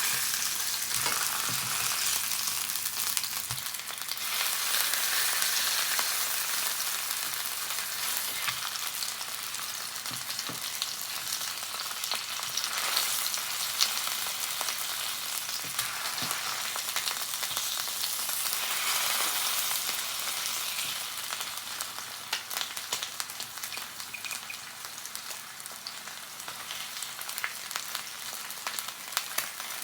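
Salmon frying in butter in a pan: a steady sizzle dotted with crackling spatters, easing off a little about two-thirds of the way through.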